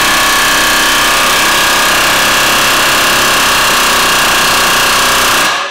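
Pneumatic air chisel hammering continuously and loudly on a lower control arm bolt that is rusted and seized in its bushing. The hammering cuts off near the end.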